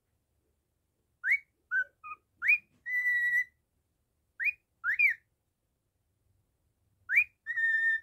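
Male cockatiel whistling: a quick run of short rising whistles, then a held note about three seconds in, two more rising whistles about halfway through, and a rising whistle followed by a held note near the end.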